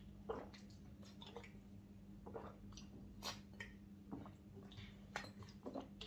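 Faint gulps and swallows of water drunk from a plastic bottle, with small clicks from the mouth and bottle, over a low steady hum.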